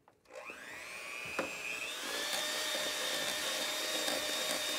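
Electric hand mixer switched on about a third of a second in, its motor whine rising in pitch and then running steady as the beaters churn cream toward butter; the cream has not yet broken. A single knock about a second and a half in.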